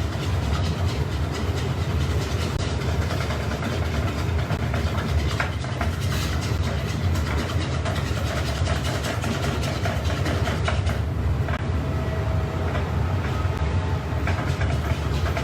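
Steady low rumble of running restaurant-kitchen equipment, with faint light clicks now and then.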